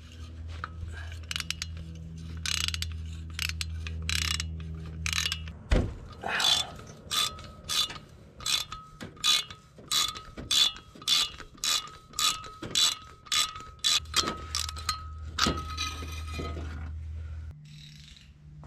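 Ratchet wrench with a spark plug socket clicking through short back-and-forth strokes, about two a second, as a spark plug is worked loose from the engine. A single sharp knock comes about six seconds in, just before the steady run of clicks.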